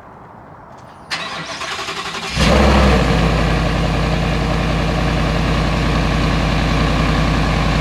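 Stock-exhaust 5.0-litre Coyote V8 of a 2023 Ford F-150 being started: the starter cranks for about a second, the engine catches with a brief flare of revs, then settles into a steady idle.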